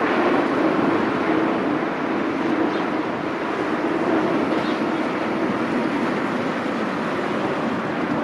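Boeing 777-300ER's GE90 turbofan engines running in a steady roar as the jet rolls down the runway after landing, easing slightly after the first couple of seconds.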